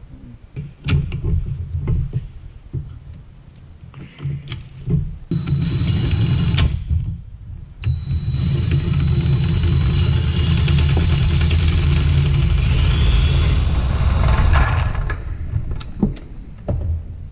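Cordless impact driver running on the bolts of a skid steer's cooling-fan hub: a few short knocks, then two long runs, the longer one from about eight seconds to fifteen seconds, rising to a whine near its end.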